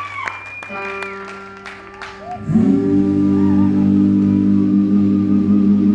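Live band music: scattered claps die away under a few held instrument notes, then about two and a half seconds in the band comes in loud with a sustained chord.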